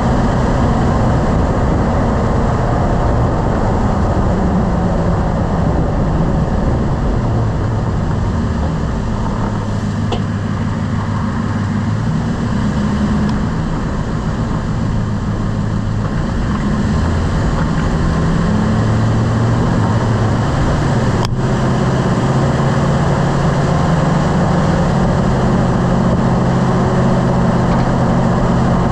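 Lifted pickup truck being driven: its engine and road noise run steadily, the engine pitch rising and falling with speed, with a faint brief click about ten seconds in.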